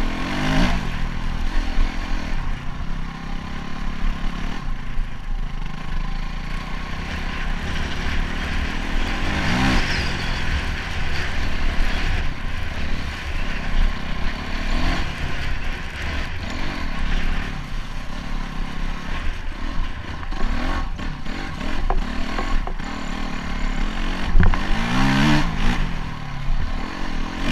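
Honda CRF250X dirt bike's single-cylinder four-stroke engine running under way, its pitch rising several times as the throttle is opened, with a steady low wind rumble on the microphone.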